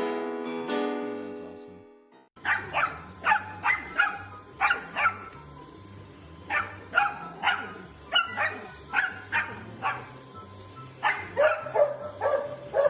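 A puppy yapping repeatedly: about twenty short, high-pitched barks, some in quick pairs and runs, starting about two and a half seconds in. Before that, piano music plays briefly.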